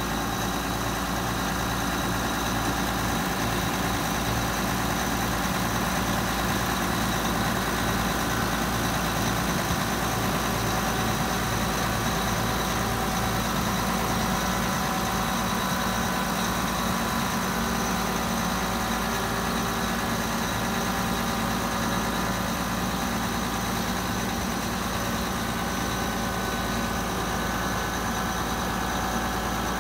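John Deere 7720 combine's diesel engine idling steadily.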